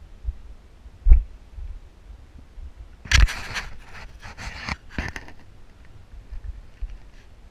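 Close scraping and rustling from a hiker moving about on sandstone, picked up by a body-worn camera: a low thump about a second in, then another thump followed by about two seconds of scraping strokes.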